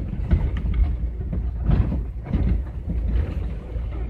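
GAZelle van rolling slowly over a broken, potholed asphalt road, heard from inside the cab: a steady low rumble broken by many irregular knocks and rattles as the body jolts over the holes.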